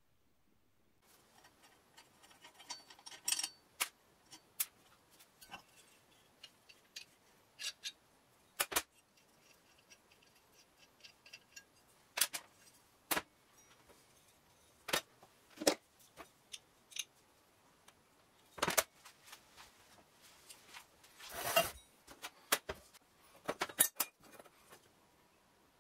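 Scattered metal clicks and clinks of the loose iron parts of an old rusty pottery wheel being handled and taken apart, with a brief scrape about 21 seconds in.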